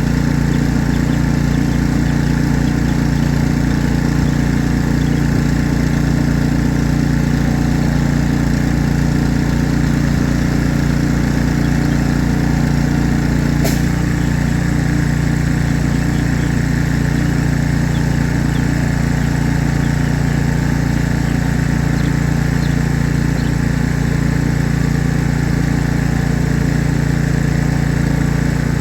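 An engine idling steadily with an even, unchanging hum, and a single sharp click about halfway through.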